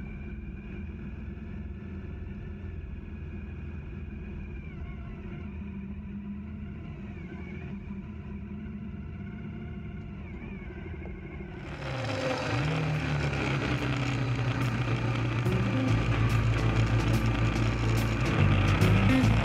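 Motorcycle engine running steadily. About twelve seconds in, the sound cuts abruptly to louder riding noise: a rushing hiss over the engine, whose pitch rises.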